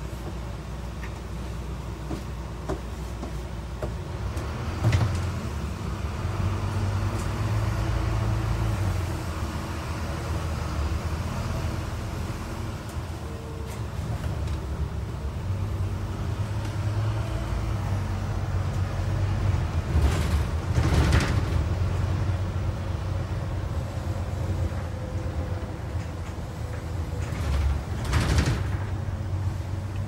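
Inside a double-decker bus as it drives: a steady low engine and road rumble that swells and eases. A few louder knocks and rattles come through, about five seconds in, around two-thirds of the way through, and near the end.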